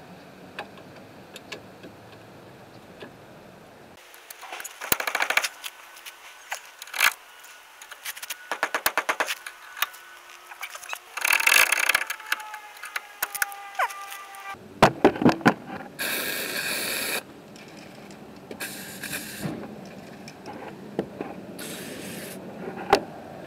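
Metal clicks and scrapes in quick runs as tools work at rusted brake caliper mounting bracket bolts. Then PB Blaster penetrating oil is sprayed from an aerosol can onto the rusted bolts, in one hiss about a second long and two shorter ones.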